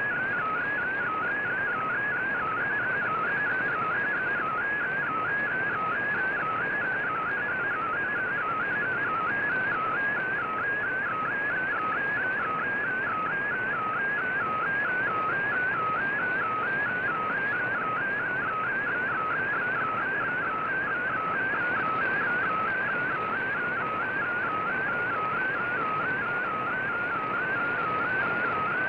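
A VOA Radiogram digital-mode data signal received over shortwave radio: a tone warbling quickly up and down in a regular repeating pattern, over a steady bed of static hiss.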